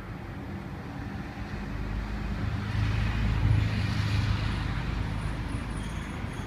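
A road vehicle passing close by over steady traffic noise, its low rumble and tyre noise swelling to loudest about three and a half seconds in, then slowly fading.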